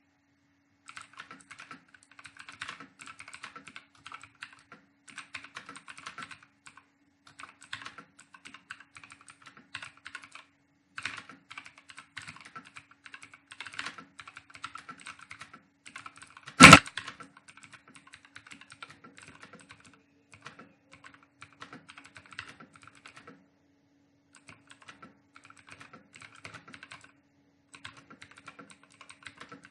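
Fast touch-typing on a computer keyboard: rapid runs of key clicks in short bursts with brief pauses between them. About halfway through comes one sharp knock, far louder than the keystrokes. A faint steady hum sits underneath.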